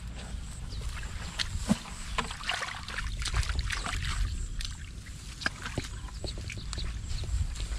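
Wind rumbling on the microphone, with scattered rustles, clicks and squelches of hands groping in wet mud and grass for fish.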